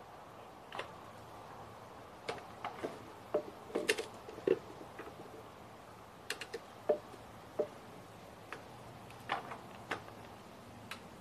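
Irregular clicks and knocks of the parts of a new lawn mower being handled and fitted together during assembly, over a faint steady hum.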